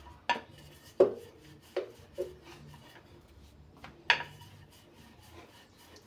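Wooden rolling pin rolling out dough on a floured granite countertop, a low rubbing broken by several sharp wooden knocks as the pin meets the counter. The loudest knocks come about a second in and about four seconds in.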